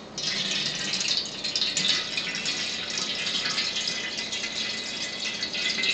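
Water pouring from a plastic container into a stainless steel tea kettle through its spout, a steady splashing stream.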